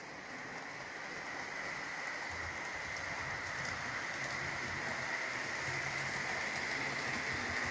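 HO scale model train running on the track, a steady rolling rumble with a higher motor whine, growing louder as it comes closer.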